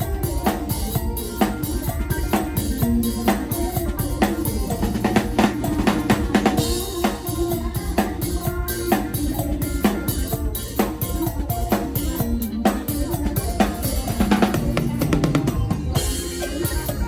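Drum kit driving a live mor lam (lam phloen) band at a brisk, steady beat, with bass drum, snare and rimshots to the fore over the band's bass line and melody.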